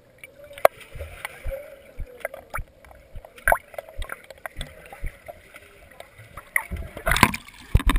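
Water sloshing and splashing close to the microphone, with scattered knocks and clicks and a louder burst about seven seconds in.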